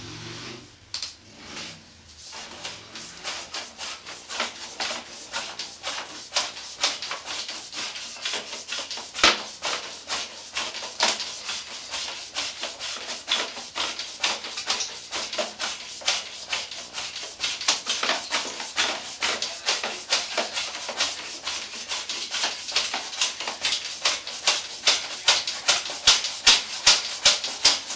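Sewer inspection camera's push cable being shoved down a 4-inch cast iron drain line, making a run of short rubbing, scraping strokes. The strokes grow louder and more even near the end, about two a second.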